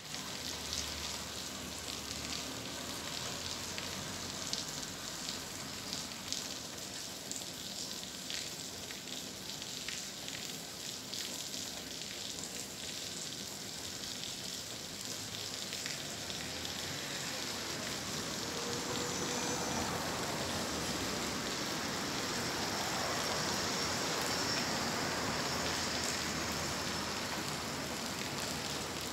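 Steady hissing noise with scattered faint crackles, growing a little louder about halfway through.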